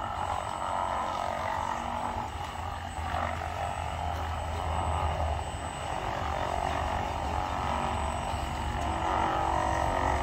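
Small electric motors and gearboxes of radio-controlled construction models, a road roller, dump truck and wheel loader, whining steadily as they drive over dirt.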